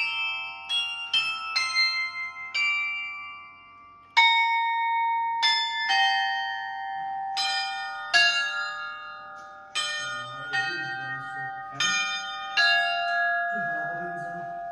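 A set of fixed Orthodox church bells rung by an electronic bell-ringer, the clappers striking different bells in an irregular pattern. Each strike is a sudden clang of several notes that rings on and fades slowly. There is a short pause about three seconds in, and the strikes stop shortly before the end while the last bells are still ringing.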